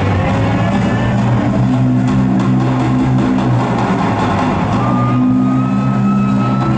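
Rock drum kit played live in a drum solo: fast, dense rolls, with low drum tones ringing and holding under the strokes.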